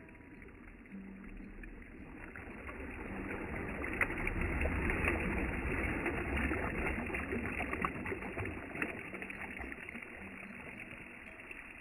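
Small lake waves washing in over a rocky shore, splashing and gurgling among the stones. One swell builds to a splashy peak in the middle and then eases back to a gentler lapping.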